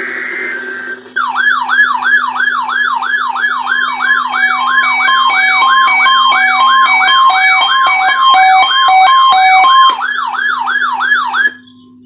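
Weather alert radio sounding its alert on receiving a NOAA Weather Radio weekly test: a brief buzzy burst of data tones, then a loud electronic siren of rapidly repeating falling sweeps, about two and a half a second, with steady beeps mixed in. It cuts off abruptly near the end.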